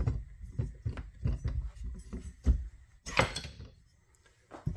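A belt pulley worked off a compressor shaft by hand: a run of low clunks and small knocks as it slides off, then a short scraping rattle about three seconds in and a single click near the end.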